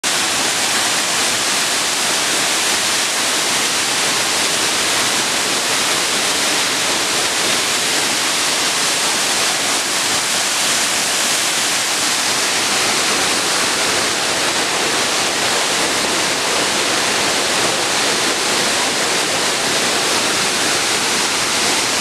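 Waterfall pouring into its plunge pool: a loud, steady hiss of falling water.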